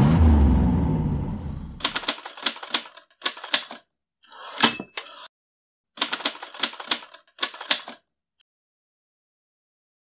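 Typewriter sound effect: several bursts of rapid key clacks, with a carriage-return bell ding a little before halfway. It opens with a fading whoosh.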